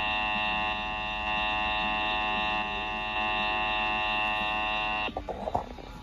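Emergency Alert System attention tone, a steady buzzing alert played through a small portable radio's speaker, cutting off abruptly about five seconds in.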